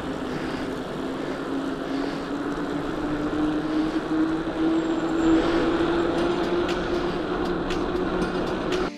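Steady travel noise from a vehicle in motion, with a hum that rises slowly and evenly in pitch as it gathers speed.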